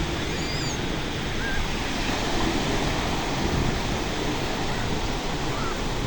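Calm sea waves washing ashore, a steady even rush of surf. A few faint short chirps sound over it.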